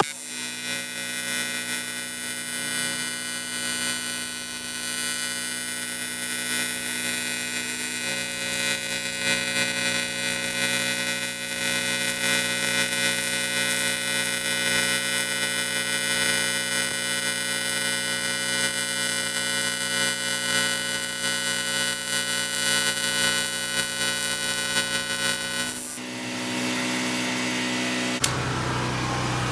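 AC TIG welding arc on aluminium from a Yeswelder 250P AC/DC welder, a steady buzz whose tone shifts slightly about eight seconds in. The buzz cuts off about 26 seconds in, leaving the portable gasoline generator's engine running.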